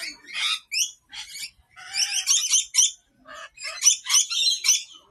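Lorikeets chattering and screeching: bursts of short, shrill calls coming in quick clusters, with brief pauses between.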